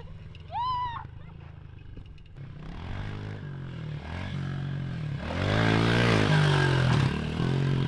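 Pit bike engine revving in rising and falling surges as it is ridden over jumps, getting loud as it passes close about five seconds in.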